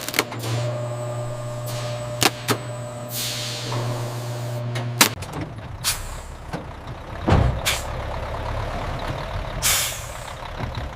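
Mechanical hum with several sharp clanks and two short hisses of released air. About five seconds in, the steady hum gives way to a lower, rougher rumble.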